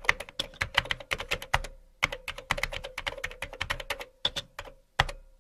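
Computer keyboard typing sound effect: rapid, irregular key clicks, with a faint steady hum underneath.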